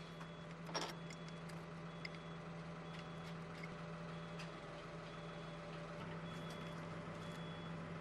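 Steel shims and bolt on the excavator quick-fit bracket being handled, giving a few faint metallic clicks, the clearest about a second in. Under them runs a steady low machine hum and a faint high beep that repeats on and off.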